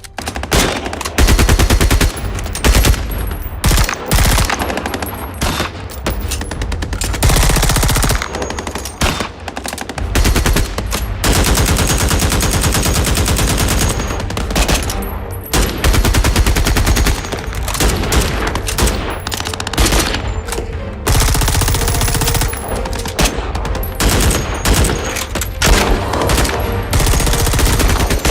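A run of recorded firearms firing: long strings of rapid automatic fire from rifles, with shorter bursts and single shots in between, each shot a sharp crack with a heavy low boom.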